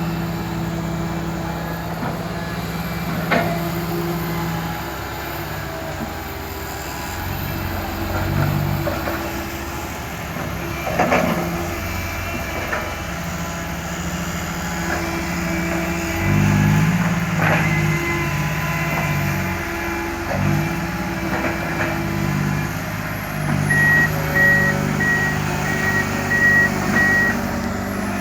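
Heavy diesel engines of an excavator and a dump truck running, the engine note stepping up and down under hydraulic load, with a few sharp knocks. Near the end a reversing alarm sounds a steady row of about six beeps.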